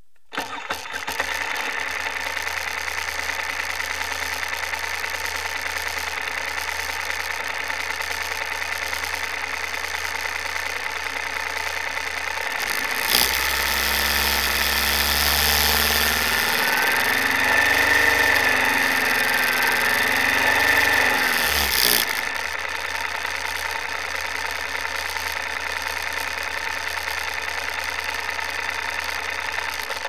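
Moto Guzzi Griso 8V's air-cooled 90° V-twin idling steadily, with the intake-air-temperature circuit in its stock "Normal" setting. About 13 seconds in it is revved up and down for several seconds, then settles back to idle.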